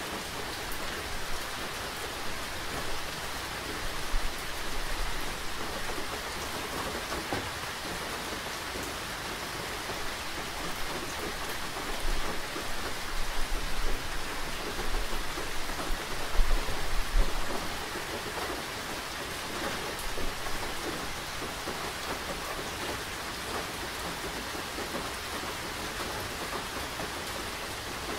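Steady rain falling. Low rumbles come through a few seconds in and again around the middle, loudest a little past halfway.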